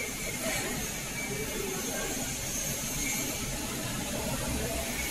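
Steady hum and hiss of factory machinery, with faint indistinct voices.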